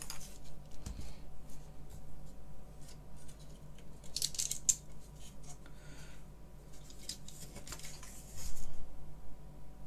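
Handling noise from a BBC Master keyboard assembly with its keycaps removed as it is lifted and turned over: scattered clicks, scrapes and rattles of its plastic and metal parts, loudest near the end, over a steady low hum.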